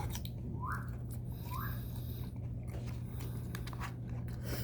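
Someone eating from a bowl: chewing and biting, with two short rising squeaks in the first two seconds, over a steady low hum.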